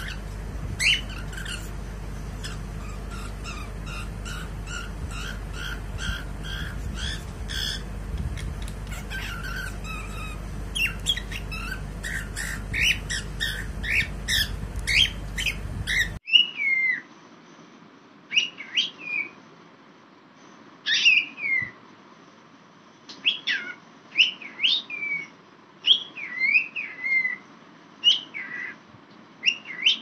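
Cockatiel singing: a quick run of chirps and squawky notes, then whistled phrases of notes gliding up and down. A steady low hum runs under the first half and cuts off suddenly about halfway.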